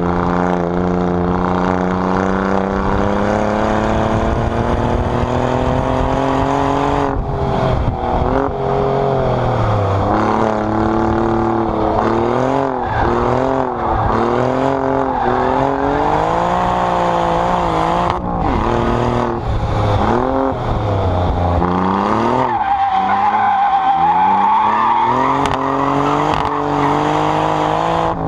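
Alfa Romeo Giulia Quadrifoglio's 2.9-litre twin-turbo V6 exhaust at full throttle on track, climbing through the revs with brief breaks at each upshift, then quick throttle-blipped downshifts under braking. About three-quarters of the way through, tyres squeal with a wavering high note for a few seconds while the engine drops low.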